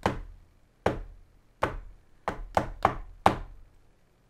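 Seven sharp, hard knocks at uneven intervals, three of them in quick succession past the middle. They are a sound-misdirection demonstration: knocks faked to make a deck of playing cards sound like a solid block of glass.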